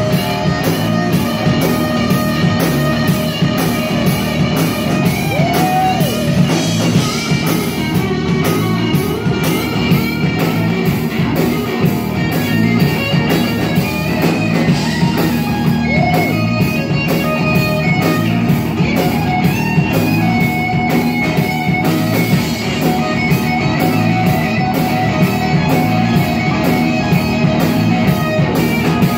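Live rock band playing, with electric guitar to the fore over a steady drum beat.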